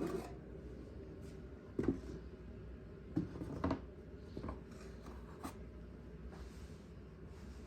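A few light, scattered knocks and rubbing sounds from hands handling objects, over a faint steady low hum.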